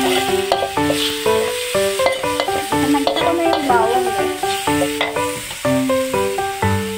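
Background music of short, evenly paced notes over a metal spatula scraping and stirring pork cubes sizzling in a wok. The scraping is heaviest around the middle.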